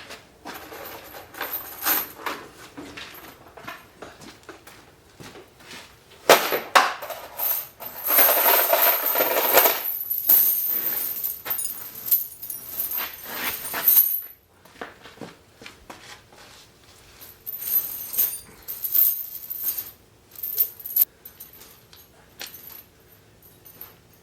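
Metal clinking and clattering, with a few seconds of steady hissing noise in the middle.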